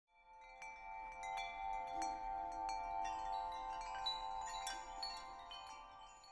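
Chimes ringing as a logo sound: many quick, high tinkling strikes over a few held tones, building up in the first second and fading away near the end.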